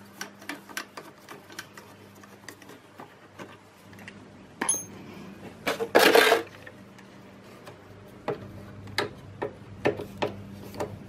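Small hand-tool clicks and ticks as a hex key works screws loose on a motorcycle's side cover, with one louder scraping rustle about six seconds in.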